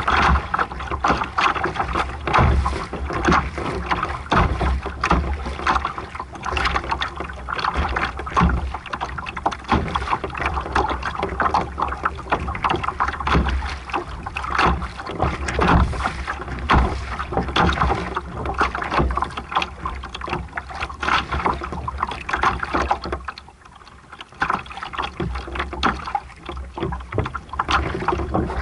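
Water splashing and rushing against a sailboat's hull as it sails, with wind rumbling on the microphone. The splashing drops away for about a second late on, then picks up again.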